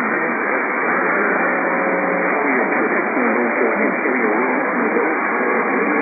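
AM radio reception: a steady hiss of static with a faint, garbled voice wavering underneath, the sound thin and cut off above the low treble.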